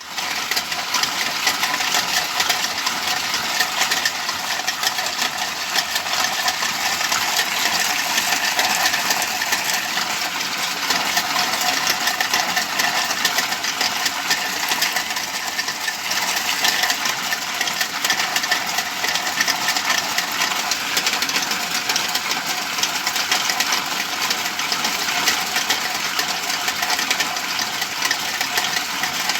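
Motor-driven ice cream churn running steadily, a dense, even mechanical rattle of fine rapid clicks.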